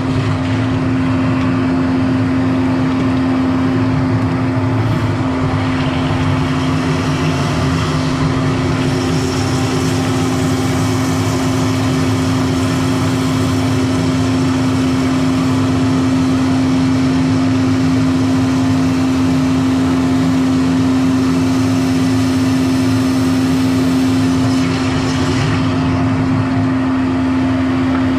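Motorised drain-cleaning machine running steadily as its cable works inside a blocked drain pipe, a constant motor drone with one low steady hum.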